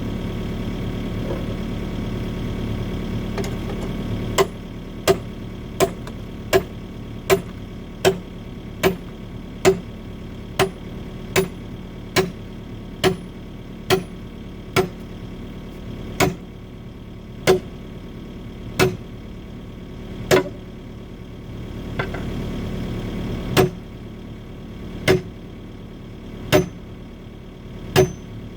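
Excavator engine running steadily, then the steel bucket striking concrete over and over in a sharp, regular rhythm, about one blow every three-quarters of a second, slowing to about one every second and a half in the second half. The excavator is breaking up concrete with bucket blows.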